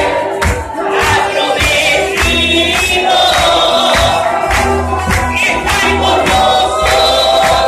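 Many voices singing a worship song together over a band, with steady drum strikes and bass notes.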